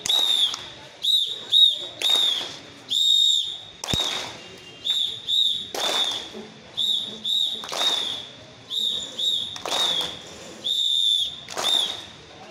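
A drill whistle blown in a steady rhythm of short and longer shrill blasts, calling the counts for a group physical exercise drill.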